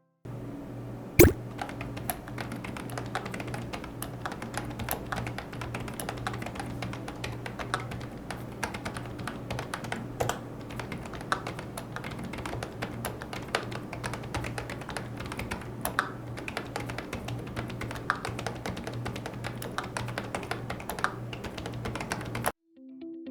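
Fast, continuous typing on a keyboard, many irregular keystrokes a second, over a steady low hum. One louder clack comes about a second in.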